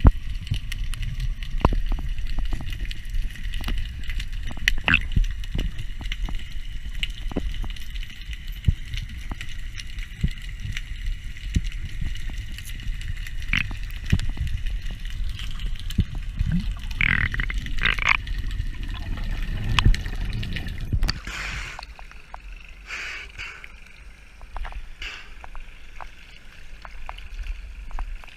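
Underwater sound heard through an action-camera housing: a low rumble of moving water with scattered sharp clicks and knocks. About two-thirds of the way in, the rumble drops away as the camera reaches the surface, and water sloshes and splashes at the waterline.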